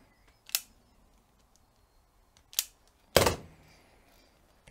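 Automatic self-adjusting wire stripper snapping as it strips insulation off twisted-pair cable: two sharp clicks about two seconds apart. A louder, heavier clack follows about three seconds in as the tool is set down on the steel bench.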